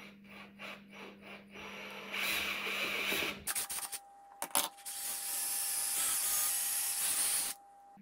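Cordless drill with a long bit boring through a wooden ukulele neck: a run of short scraping strokes, then steady drilling with a whine. The drilling pauses briefly with a couple of clicks around the middle, then runs on and cuts off suddenly near the end.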